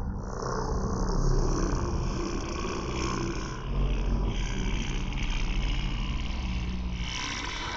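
Buzzing of flying drones over a deep rumble. The buzz thickens about a second in, dips briefly in the middle and swells again near the end.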